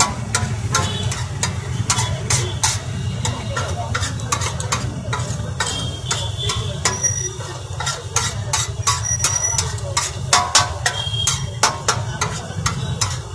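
Flat steel spatula scraping and clacking against a large flat metal griddle (tawa) as a pea and samosa chaat mixture is mashed and stirred, with many quick, irregular strokes. A steady low hum runs underneath.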